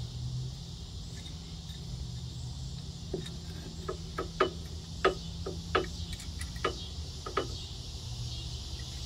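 Adjustable wrench clinking on a nut as a metal clamp bracket is tightened: about ten short, sharp metal clicks at uneven intervals through the middle few seconds.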